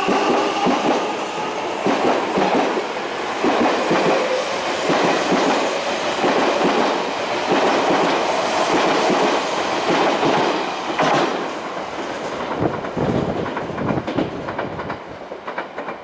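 Odakyu 1000-series commuter train pulling out and running past: wheels and car bodies rumbling, with a rhythmic clatter of wheels over the rail joints. The clatter thins into separate clicks as the last cars go by, and the sound fades near the end.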